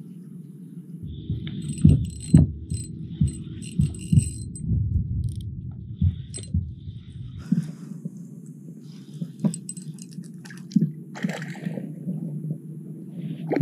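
Water slapping against a kayak hull, with knocks and light metallic clicking from the spinning rod and reel being handled and cranked. The knocks and clicks come thickest in the first half.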